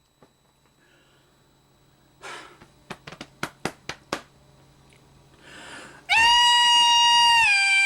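A breath, a quick run of about six sharp clicks, another breath, then a loud, very high sung note, held steady, that steps down in pitch near the end.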